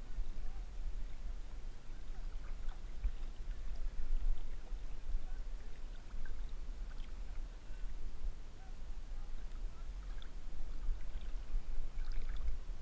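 River water lapping and sloshing against a camera held at the surface during a swim, with an uneven low rumble and scattered small drips and splashes, a few more of them near the end.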